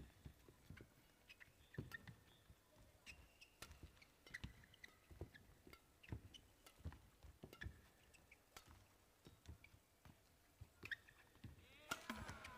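Faint badminton rally: sharp racket strokes on the shuttlecock at an irregular pace, with short shoe squeaks on the court, and a brief shout near the end as the point is won.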